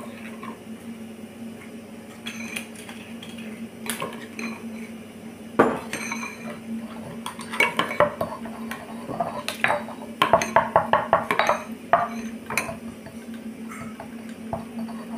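Metal spoon clinking and scraping against a stone mortar and pestle while sauce is stirred, in irregular sharp clinks with a quick run of them about two thirds of the way through. A steady low hum sits underneath.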